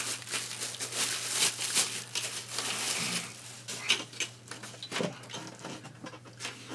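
Plastic packaging bag crinkling and rustling as a laptop cooling pad is pulled out of it, busiest in the first three seconds, then scattered handling clicks and rustles.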